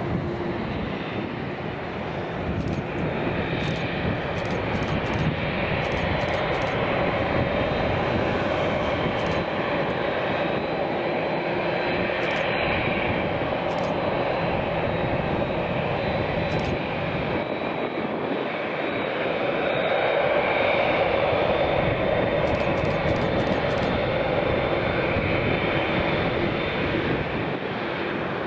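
Jet engines of a Boeing 787 Dreamliner running as it taxis, a steady rushing noise that grows slightly louder about two-thirds of the way through.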